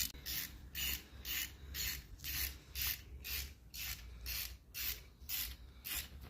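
A hand ratchet wrench worked in steady strokes, about two a second, each stroke a short rasping run of clicks, as bolts are driven in while a timing chain set is fitted to an engine block.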